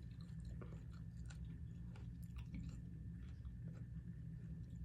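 A person chewing a mouthful of salad with grilled salmon, soft wet crunches and clicks of lettuce and food being chewed, over a low steady background hum.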